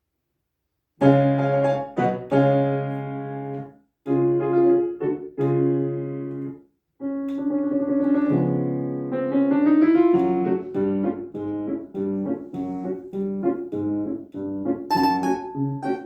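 Piano music starting about a second in: loud chords that fade and stop twice in short pauses, then quicker running notes.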